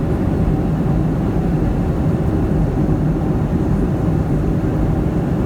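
Boeing 757-200 in flight: a loud, steady low rumble of engine and airflow noise with a constant hum underneath, unchanging throughout.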